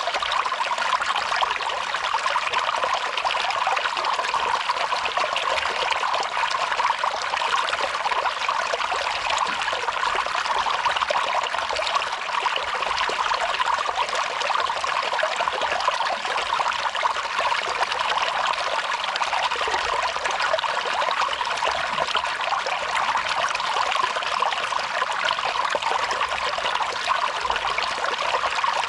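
Water from a small waterfall dripping and trickling steadily, a dense run of many small splashes with no pause or change.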